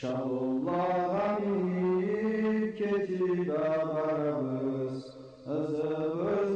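A solo voice chanting in long held notes that slide slowly from pitch to pitch, breaking off briefly about five seconds in.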